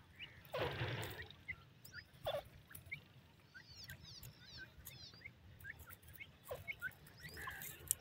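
Young francolin (teetar) chicks peeping: many short, soft high peeps scattered throughout, with a few louder calls mixed in.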